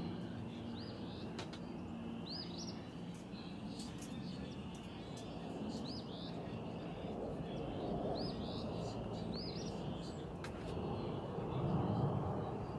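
Jet airliner passing overhead, its engine rumble swelling to its loudest near the end. A small bird chirps about five times over it.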